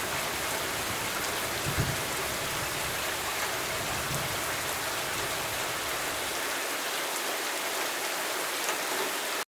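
Steady heavy rain with a low rumble of thunder that swells briefly about two seconds in and dies away over the next few seconds; the rain then cuts off abruptly just before the end.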